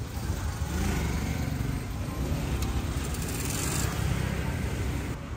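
Street traffic: motorbike and car engines running and passing, a steady low rumble.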